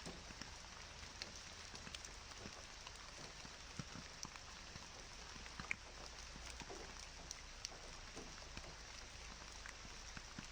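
Soft, steady rain falling, an even hiss with scattered faint drop ticks.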